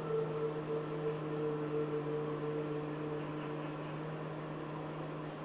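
Calm background music of long held low tones layered together, the higher notes dropping out one at a time while the deepest one carries on.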